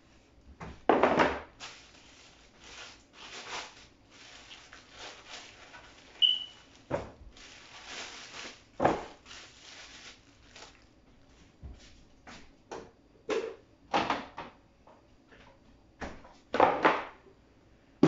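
Food containers, packets and fridge drawers being handled as things are taken out of a refrigerator: irregular clatters, knocks and rustles, loudest about a second in and near the end.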